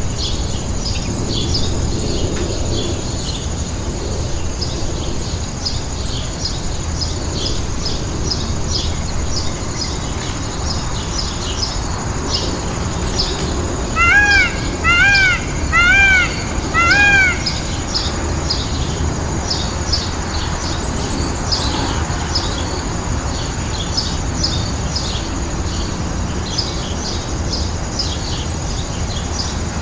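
Peacock (Indian peafowl) giving four loud, harsh calls about a second apart about halfway through, each rising then falling in pitch. Fast high chirping runs on underneath throughout.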